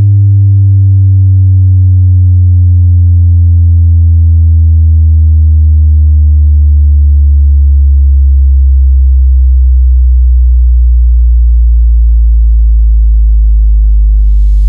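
A very loud, deep bass test tone, played through a subwoofer for a sub-bass speaker test, slowly gliding down in pitch throughout.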